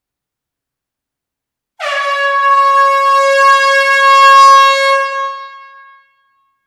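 Air horn in a closed hall giving one steady, unwavering blast of about four seconds, starting sharply about two seconds in and fading away over its last second.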